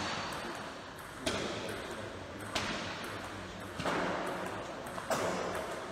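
Table tennis ball being struck and bouncing: sharp clicks about every second and a quarter, each with a short echo from the sports hall.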